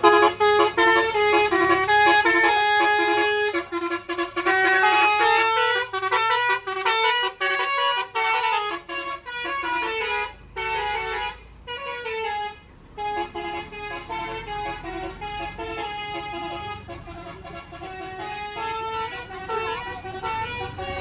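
Tour bus's telolet (basuri) musical air horns, driven by a tune module through roof-mounted horn trumpets, playing a fast melody of stepped notes. The tune breaks off briefly about ten seconds in and again about twelve and a half seconds in.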